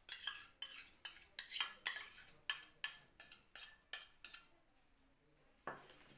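Metal spoon scraping and clinking against a stainless steel mixing bowl as a thick mixture is stirred, about four strokes a second. The stirring stops about four and a half seconds in, and a single knock follows near the end.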